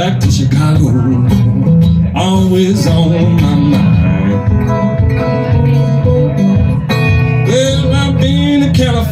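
Blues played solo on a steel-string acoustic guitar in a steady rhythm, with a bending melody line over it from the performer at the microphone and harmonica rack.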